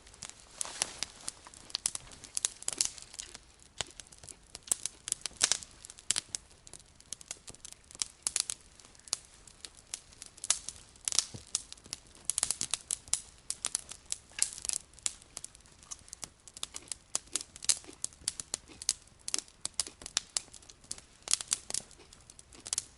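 Wood campfire crackling, with a steady run of irregular sharp snaps and pops.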